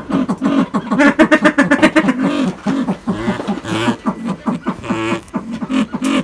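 Helmeted guineafowl calling: a loud rapid run of harsh repeated notes, several a second, going on with brief breaks.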